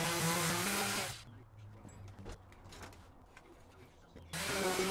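Electric sheet sander running on an MDF board with a steady buzz and hiss, switched off about a second in. A few light knocks follow over a low hum, then a similar loud buzz starts again near the end.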